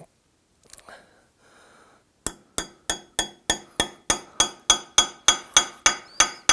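A small hammer tapping a Torx bit into a drilled-out, broken M6 brake-disc screw in a steel wheel hub. Sharp, ringing metal-on-metal clinks start about two seconds in and go on steadily at about three blows a second. The blows drive the bit in to get a grip on the broken screw so it can be turned out.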